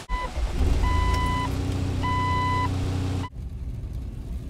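Jeep's engine running, heard from inside the cabin, with a dashboard warning chime beeping three times, steady tones about a second apart. The sound cuts off suddenly about three seconds in, giving way to the quieter rumble of the Jeep driving.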